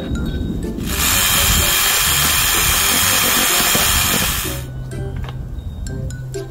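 Cordless drill running in one burst of about four seconds, starting about a second in and cutting off.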